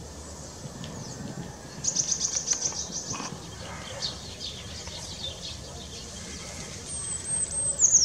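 Small songbirds singing: a fast, high, evenly paced trill, then scattered chirps, and near the end a high whistle that slides down in pitch.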